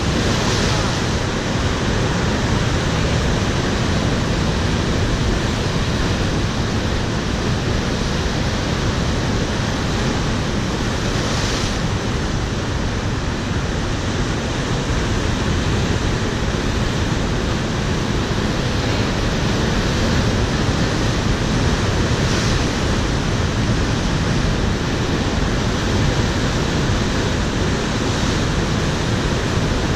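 Heavy ocean surf breaking over shoreline rocks: a steady, dense rush of churning white water, swelling as waves crash onto the rocks, most clearly about half a second, eleven and a half and twenty-two seconds in.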